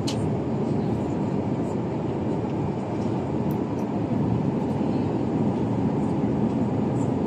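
Steady cabin noise of a jet airliner in flight: the even rush of engines and airflow heard inside the passenger cabin.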